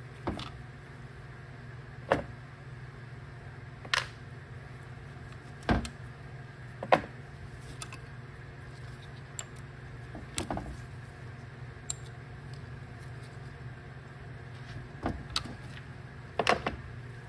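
Irregular metallic clicks and knocks, about eight in all and unevenly spaced, some sharp and loud, from hand tools and small parts being handled on a Toyota AB60 valve body and set down on a metal workbench while its solenoids and retaining pins are removed. A steady low hum runs underneath.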